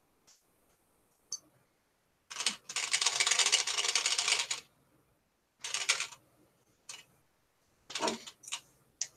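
Close handling noise from hand-sewing: one long rasping, rustling sound about two to five seconds in, then several shorter rasps and a few clicks, as thread and fabric are pulled and handled right by the microphone.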